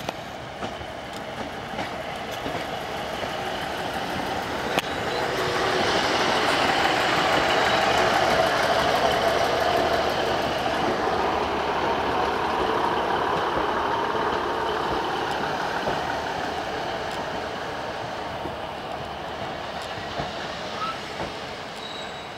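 Class 150 Sprinter diesel multiple unit running past along the platform, its diesel engines and wheels on the rails growing to their loudest about eight seconds in and then slowly fading, with a few clicks from the rail joints.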